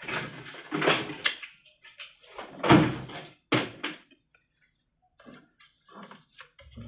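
Small plastic toy-kitchen pieces knocking and clattering as they are handled on a hard surface: a run of sharp knocks with one heavier thump just before the middle, then fainter clicks.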